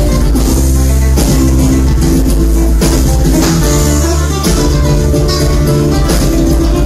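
Amplified cuatro played in a fast joropo strumming pattern, with sharp percussive strokes, over a steady deep bass.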